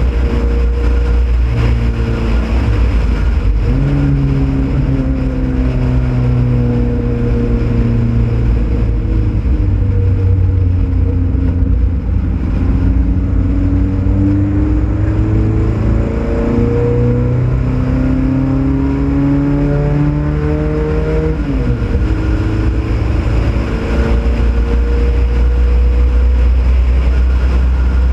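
Ford Pinto race car's engine under hard driving on a road course, with constant wind and road noise. About four seconds in the revs jump up on a downshift, then sink through the corner. They climb steadily on acceleration until an upshift about twenty-one seconds in, then pull on at high revs.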